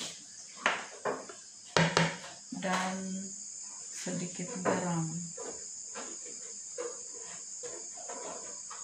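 Crickets chirping in a steady high chorus throughout. Over it a metal spoon clicks and knocks against a plastic basin while dry flour is stirred, loudest about two seconds in. Two short voice-like pitched sounds come from the background, around three and five seconds in.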